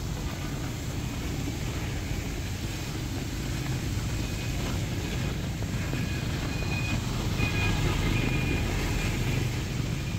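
Street traffic running through heavy rain: a steady low rumble of vehicles with rain hissing over it, swelling a little about two-thirds of the way in.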